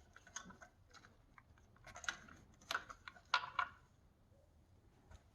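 Faint clicks and small clatters of a plastic wiring connector and harness being handled, in a few scattered bursts, the loudest a little past the middle.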